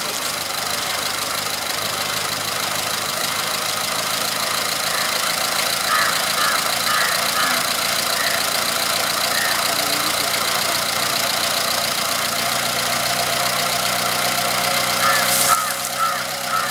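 Engine of a homemade helicopter running steadily, turning the main rotor.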